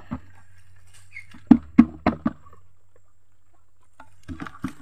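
Plastic feed bucket upended and knocked against the edge of a concrete trough to shake out wet feed: four quick hollow knocks about a second and a half in, then a few lighter ones near the end.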